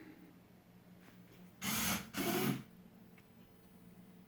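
Servo motors of a 3D-printed Rubik's cube solver robot whirring in two short moves a little under half a second apart, each with a pitch that rises and falls, over a faint steady hum. The robot is starting its run after being set going.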